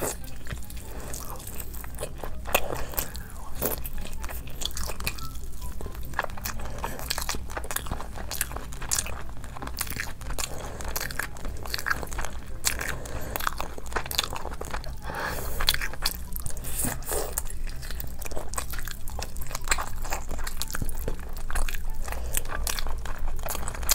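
Close-miked biting and chewing of crunchy food, a dense run of crisp crunches and crackles.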